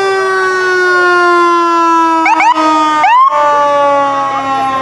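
Fire truck siren winding down in a long, slowly falling wail. A little past the middle, a few quick rising whoops cut in over it.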